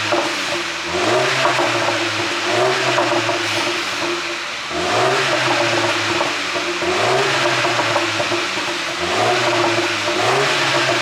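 Turbocharged 2.0-litre four-cylinder engine of a 2020 MINI Cooper S Clubman revved in repeated short blips, rising, holding briefly and dropping back, about every one to two seconds. The ECU is tuned for exhaust pops and crackles on the overrun as the revs fall.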